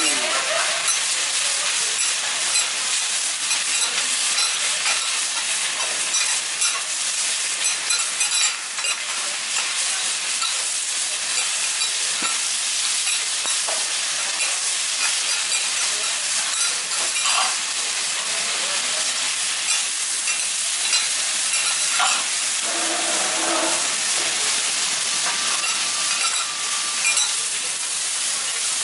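Spinach frying on a hot steel teppan griddle with a steady sizzling hiss, while two metal okonomiyaki spatulas turn it over, scraping and clicking against the plate.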